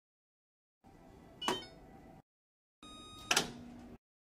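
Electrolux washer/dryer control panel beeping as it is toggled on. A click with a short beep comes about a second and a half in. Then, from near the three-second mark, a held electronic chord plays, with a sharper click-beep a little past three seconds and a low tone after it.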